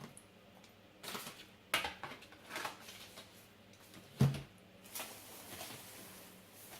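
Hands handling cosmetics and their packaging: scattered rustles and light clicks, a soft thud about four seconds in as something is set down, then a longer rustle.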